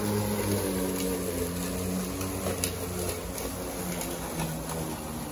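Greenworks 20-inch 12-amp corded electric lawnmower running as it cuts grass, a steady motor hum whose pitch steps up and down.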